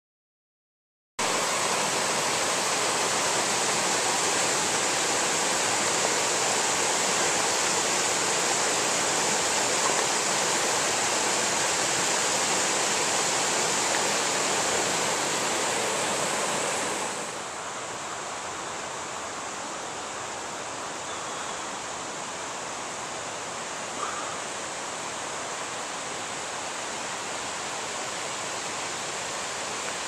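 Steady rush of a stream cascading over rocks below a waterfall. It starts about a second in and turns quieter and duller about halfway through.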